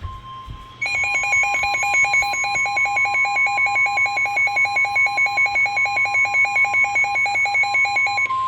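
NOAA Weather Radio 1050 Hz warning alarm tone, one steady electronic tone, marking the start of a new severe thunderstorm warning. About a second in, a second electronic alarm joins it, rapidly pulsing at about eight beats a second, and cuts off just before the end while the steady tone carries on.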